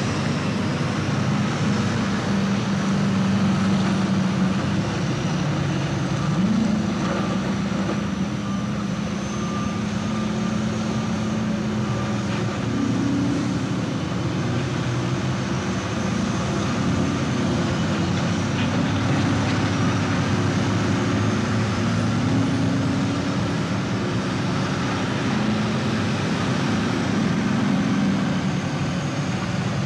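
Heavy diesel engines of earthmoving machines (off-road dump trucks and loaders) running steadily, the engine note stepping up and down several times as they work.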